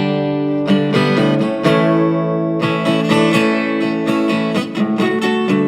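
Acoustic guitar strummed, its chords ringing between strokes, as an instrumental passage of the song with no singing.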